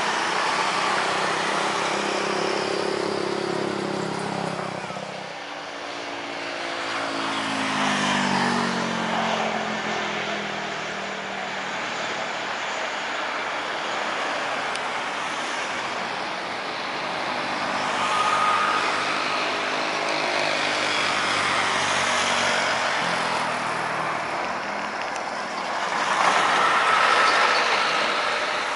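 Jet engines of an Air Macau Airbus A320 running at high power on its takeoff roll: a continuous roar that swells and fades, with an engine tone falling in pitch about a quarter of the way in.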